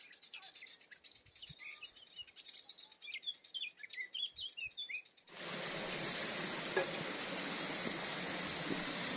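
Small birds chirping over a fast, high insect trill. About five seconds in this cuts off abruptly to the steady, louder rush of water flowing in the hot-spring stream.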